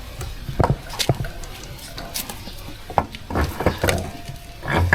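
Scattered sharp clinks and knocks of metal tools and parts being handled during motorcycle rear-wheel work, with a small cluster of strikes a little past three seconds in.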